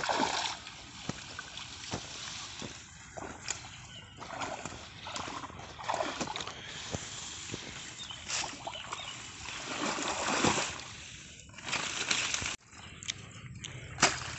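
Shallow water sloshing and splashing in irregular surges as a bamboo push net is shoved through floating water hyacinth and lifted out.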